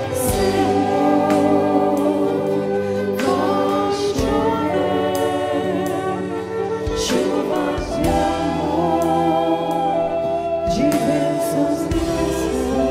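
Mixed choir of men and women singing a Portuguese devotional hymn through microphones, in long held chords that shift a few times.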